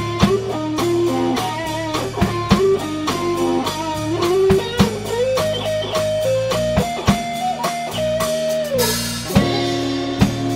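Live instrumental rock band: an electric guitar plays a lead melody with bends and slides over electric bass and a drum kit keeping a steady beat. A cymbal crash about nine seconds in.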